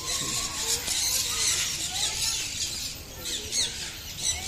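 A dense chorus of many small birds chirping and chattering continuously, with quick high squeaks and short gliding notes.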